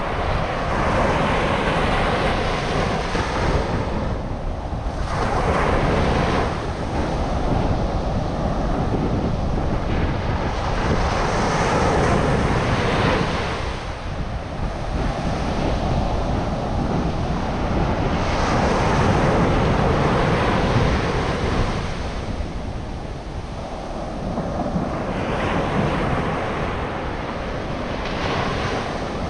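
Ocean surf breaking on a beach, the wash swelling and fading every few seconds, with wind rumbling on the microphone.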